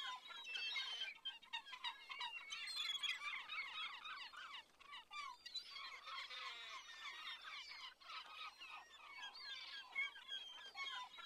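Many birds singing and chirping at once: a dense chorus of short, overlapping notes.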